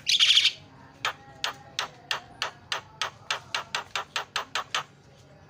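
Javan myna (jalak kebo) singing: a short harsh chattering burst, then a long run of sharp clicking notes, about three to four a second and quickening slightly.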